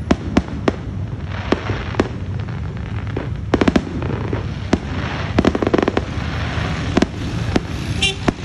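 Aerial fireworks going off in quick succession: sharp bangs at irregular intervals, some in rapid clusters, with stretches of crackling from glittering shells.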